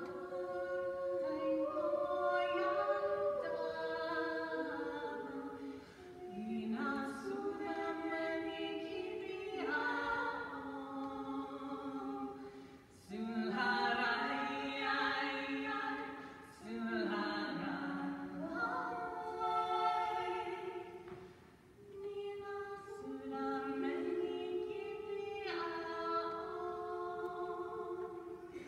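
Mixed choir singing a cappella, unaccompanied chords in Finnish moving in phrases of a few seconds, with brief breaks between phrases.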